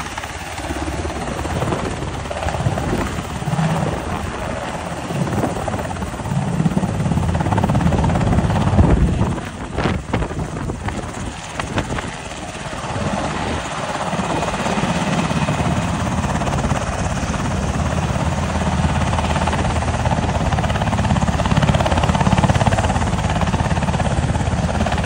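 UH-60 Black Hawk helicopters running close by: loud, continuous rotor and turbine noise. It dips briefly about ten seconds in, then holds steady as a landed helicopter keeps its rotors turning.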